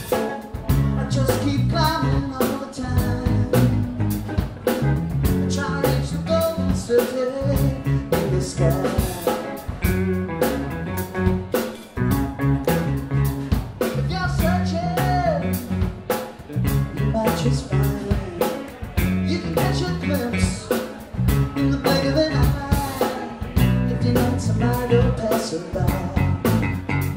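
Live rock band playing: two electric guitars, electric bass and a drum kit in a steady groove, with guitar lines bending in pitch over the top.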